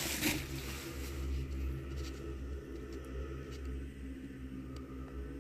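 A steady low hum runs throughout, with a brief rustle at the start and a few faint clicks.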